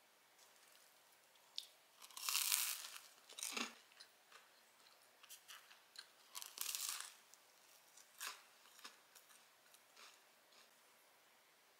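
Crisp buttery crust of a salt bread roll crackling and crunching as it is torn apart and bitten, in two loud spells about two and six and a half seconds in, with smaller crackles in between.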